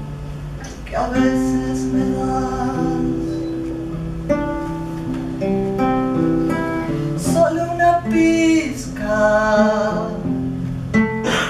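Acoustic guitar played live, a melody of picked notes ringing over held bass notes.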